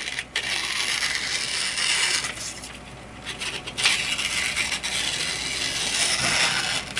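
Steel knife edge cutting with a continuous scratchy scraping, broken by a short pause about two and a half seconds in and a sharp click about a second later; it is a quick check that the edge still cuts cleanly after chopping into bone.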